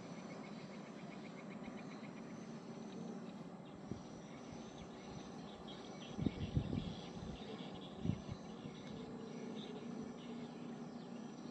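Riverside ambience of insects chirping steadily, over a faint low steady hum. A few brief low thumps come about six seconds in and again near eight seconds.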